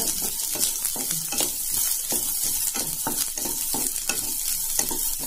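Chopped coconut pieces sizzling in coconut oil in a non-stick pan, stirred with a spatula that scrapes the pan in quick repeated strokes.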